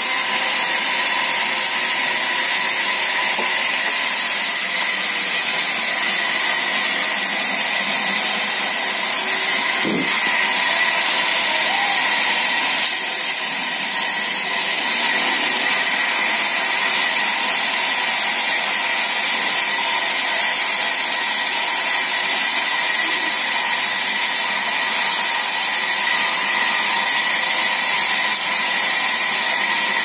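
Large band saw running and cutting through a log: a steady whine with a hiss, unbroken except for a brief break about ten seconds in.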